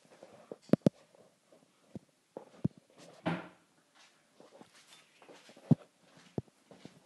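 Scattered sharp knocks and clicks in a small room, two close together just under a second in and a louder one near six seconds, with a brief rustle a little past three seconds.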